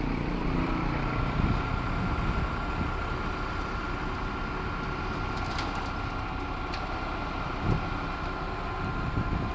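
Concrete mixer truck running, its engine and drum drive working steadily. A steady whine comes in about half a second in and holds, with a faint click or thump now and then.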